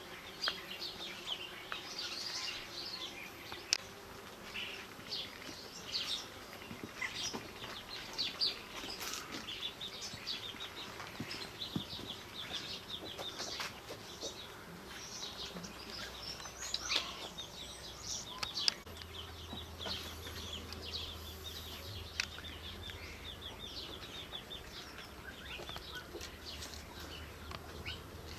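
Outdoor ambience of small birds chirping, with scattered short high chirps throughout and a quick run of rapid chirps about halfway through. A low steady hum comes in about two-thirds of the way through.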